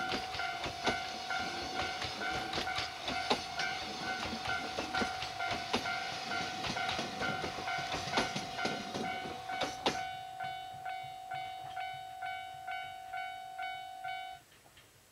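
Container wagons of a freight train rolling past, wheels clacking over rail joints, until the last wagon clears about two-thirds of the way through. A warning bell rings steadily about twice a second throughout, typical of a level-crossing alarm, and stops suddenly near the end.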